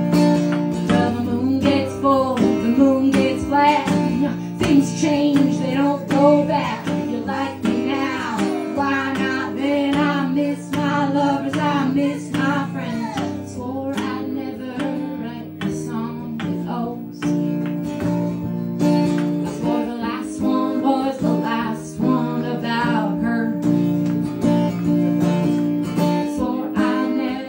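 A strummed acoustic guitar with a woman singing over it, played live through a small PA.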